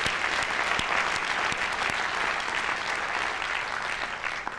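Large seated audience applauding, the clapping fading away near the end.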